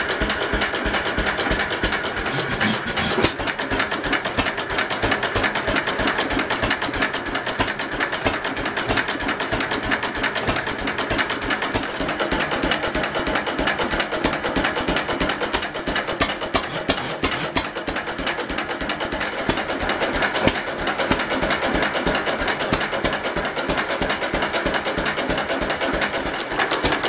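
Fairbanks-Morse Z 3 hp stationary engine running, a steady, fast mechanical clatter from its moving parts.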